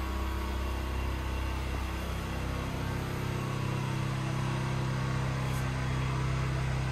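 A pressure washer's engine running steadily, with a slight change in its note about two seconds in.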